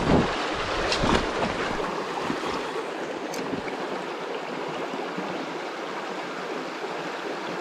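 Creek water running steadily over rocks, a continuous rushing hiss. Two dull knocks come about a second apart at the start.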